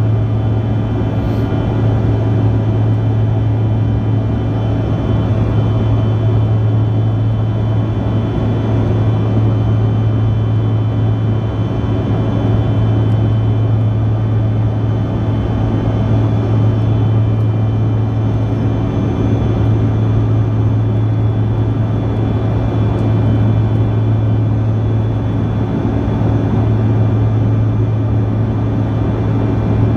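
Cabin noise of a Bombardier CRJ-200 regional jet: its two rear-mounted General Electric CF34 turbofans running at steady thrust, heard from inside the cabin as a loud, even drone with a strong low hum and a set of steady whining tones above it.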